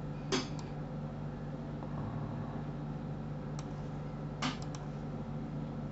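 A few sharp clicks of a computer mouse and keyboard, one about a third of a second in, one past three and a half seconds, and a quick pair around four and a half seconds, over a steady low background hum.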